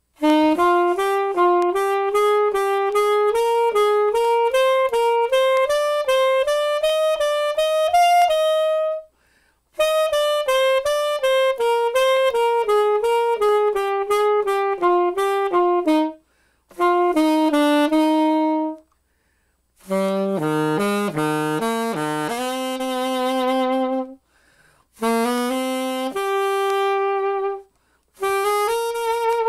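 Saxophone played loud and unmuted, with no practice mute fitted. It plays a quick C major scale climbing for about eight seconds, then after a short break runs back down, followed by several shorter phrases with brief pauses between them.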